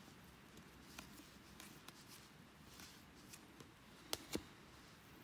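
Faint handling of a stack of baseball cards: cards slid and flipped from hand to hand, with soft scattered clicks and two sharper snaps a little after four seconds in.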